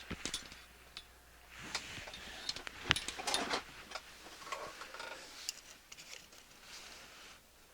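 Hands handling small parts at a workbench: scattered light clicks and taps with short bursts of rustling, the loudest a sharp click about three seconds in.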